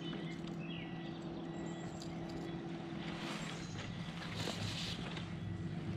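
Motorboat engine running steadily at an even, low-pitched hum, with two brief rushes of hiss about three and four and a half seconds in.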